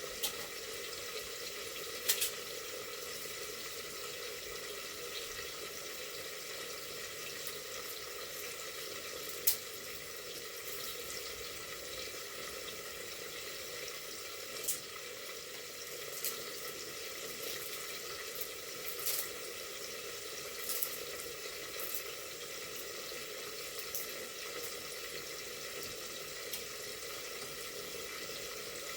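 Steady kitchen hiss with a faint hum under it, broken by a few sharp clicks and knocks scattered through.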